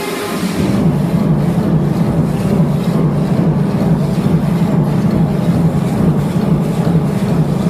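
Loud aerobics dance music over studio speakers, with a heavy bass line and a steady beat of about two beats a second; the bass comes in under a second in.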